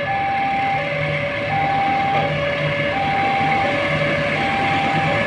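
Electronic two-tone railway warning alarm, a lower and a higher tone alternating about every three-quarters of a second. Beneath it, from about a second in, the low steady hum of an approaching diesel locomotive hauling a container freight train.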